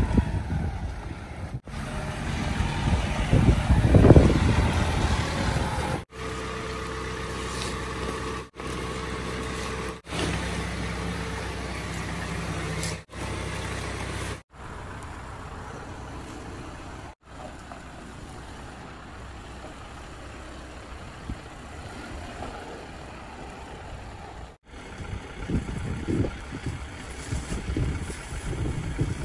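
Wind buffeting the microphone in gusts, heard across several short cuts. Through the middle stretch there is a steady, even mechanical hum with a held tone.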